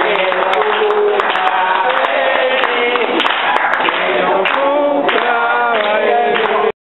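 A group of people singing together, loud and close, cutting off abruptly near the end.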